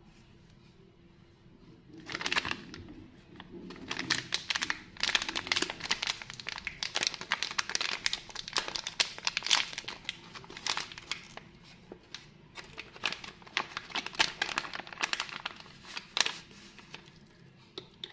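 Foil-lined plastic wrapper of a Big Babol Fillfolly cotton-candy gum packet crinkling and tearing as it is pulled open by hand, a dense run of sharp crackles starting about two seconds in.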